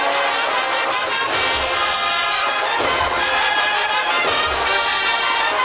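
An agrupación musical, a Spanish Holy Week marching band of trumpets, cornets and trombones with percussion, playing a processional march. The sustained brass chords are carried over a regular drum beat.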